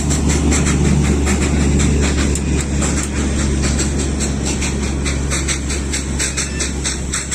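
Darjeeling toy train running: a steady low rumble with a fast, even clicking over it.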